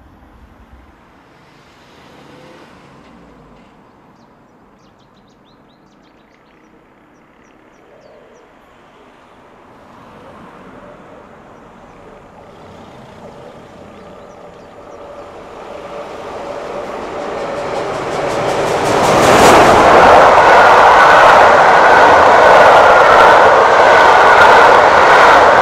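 A steam-hauled excursion train, the LMS Princess Coronation Class Pacific Duchess of Sutherland with its coaches, approaching and passing at speed. It is faint at first and swells over several seconds to a loud, steady rush about three-quarters of the way through, then the coaches run by with rapid clicking over the rail joints.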